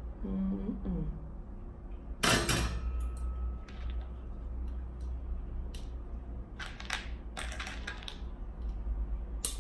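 Chrome-plated stainless-steel dish rack parts clinking and clattering as they are handled and fitted together: one sharp metal knock with a brief ring about two seconds in, then a scatter of lighter clinks.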